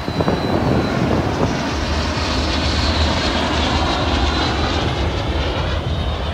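Three Aero L-39 Albatros jet trainers flying past in formation: a loud, steady jet rush with a faint high turbine whine that falls slightly in pitch as they go by.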